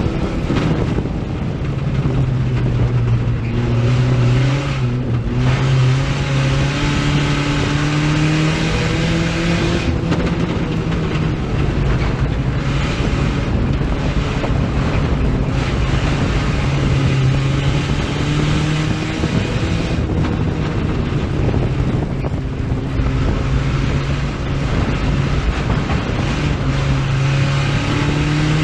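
A USRA Tuners-class dirt-track race car's four-cylinder engine running hard, heard from inside the car. Its pitch rises and falls several times as the throttle is lifted and reapplied.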